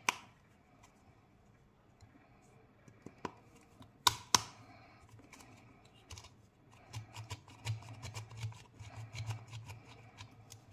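Plastic clicks from a Poko Loko Sour Taffy candy dispenser being handled and worked: a few scattered clicks, two loud ones about four seconds in, then a quick run of clicking from about seven seconds in.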